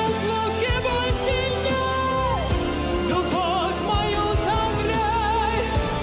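Pop ballad playing as background music: a melody line with vibrato over bass and accompaniment.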